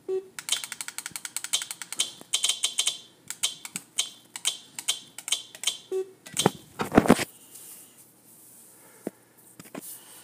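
A computer game's menu sound effects played through laptop speakers: a rapid string of short high electronic beeps as the level-select screen is clicked through level after level. About six and a half seconds in, a few louder knocks, then it goes quiet.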